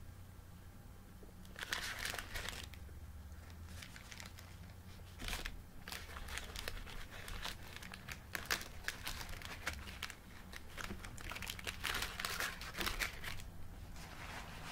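Paper crinkling and rustling in several irregular bursts, with quieter stretches between.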